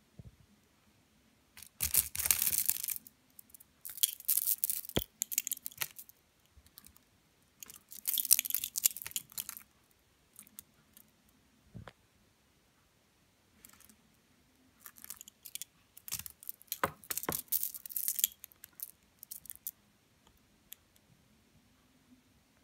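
Strings of polished stone beads clicking and rattling against each other as they are handled, in four clattering bursts with a few single clicks between.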